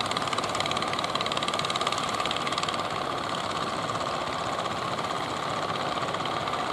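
Fishing boat engine running steadily under way, a rapid even beat with no change in speed.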